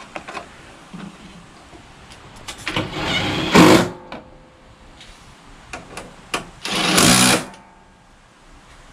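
Cordless power driver run in two short bursts of about a second each, driving fasteners, with a few small clicks of parts being handled between them.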